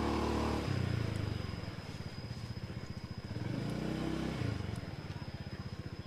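Small motorcycle engine running at low speed as the bike rolls slowly, the throttle opened gently twice so the engine note swells and falls back.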